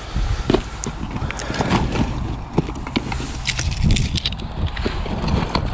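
Wind buffeting the microphone with a low rumble, over irregular rustling, crackling and scraping as a magnet-fishing rope and a magnet clogged with wet leaves and scrap metal are handled.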